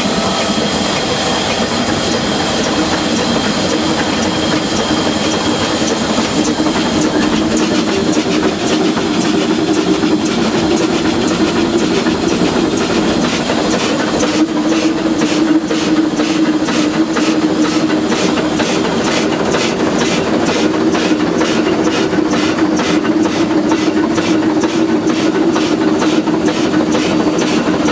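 Cab of an oil-fired Shay geared steam locomotive under way: steady mechanical rumble and hiss. About halfway through, a rapid, even beat of several strokes a second comes in and keeps going.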